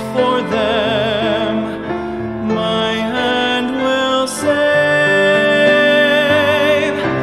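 Solo tenor singing a hymn with wide vibrato on held notes, accompanied by grand piano.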